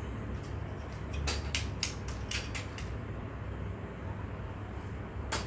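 Eating sounds: a quick run of small sharp clicks about a second in, and one louder click near the end, over a low steady hum.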